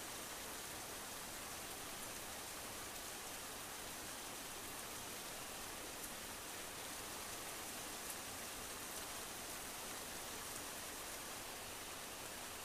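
Steady, even hiss with nothing else standing out, broken only by a couple of faint ticks about six and eight seconds in.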